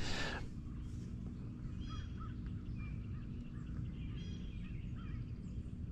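Distant birds calling: a few short, faint honk-like calls over a steady low background rumble, with a brief rustle at the very start.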